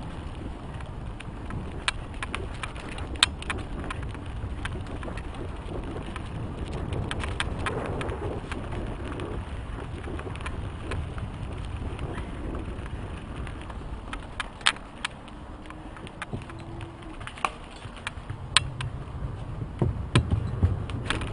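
Mountain bike ridden fast down dirt singletrack: wind rush on the bike-mounted microphone and tyres on dirt make a steady rumble, with sharp clicks and rattles from the bike over bumps throughout and a cluster of louder knocks near the end.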